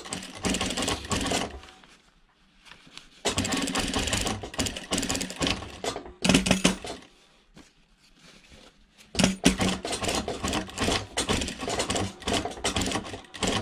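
Sewing machine stitching through layered cotton fabric and elastic in four runs, stopping and starting again between them.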